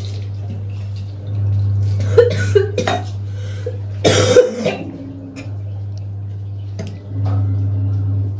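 A woman coughing and clearing her throat over a washbasin while rinsing blood from her mouth after a nose and mouth bleed. There are harsh bouts about two and four seconds in, over a steady low hum.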